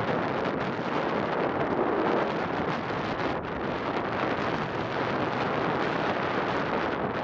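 Steady wind rushing over the rider-mounted camera's microphone on a fast mountain-bike descent, mixed with the rumble of the tyres rolling over loose gravel and dirt.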